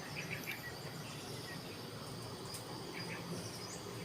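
Faint outdoor ambience of steady, high-pitched insect buzzing, with a few faint short bird chirps.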